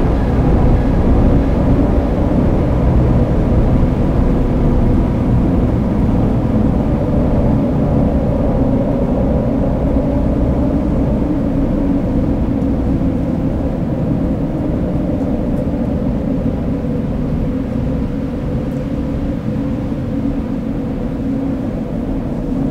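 Dark ambient drone music from a runway show soundtrack: a steady, loud low rumble with long held tones over it, easing slightly in level.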